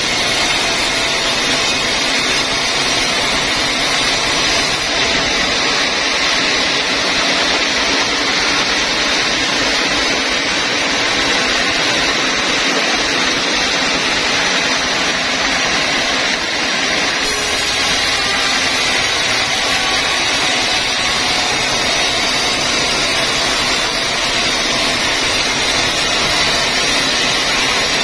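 Band sawmill running, its blade sawing lengthwise through a large log on the carriage: a loud, steady mechanical noise with a hiss of cutting.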